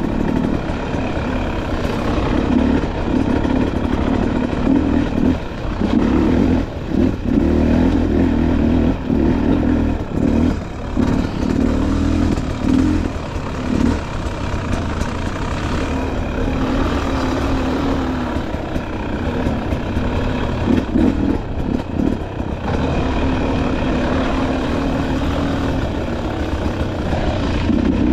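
Dirt bike engine running under changing throttle, the revs rising and falling, with frequent brief drops where the throttle is eased off.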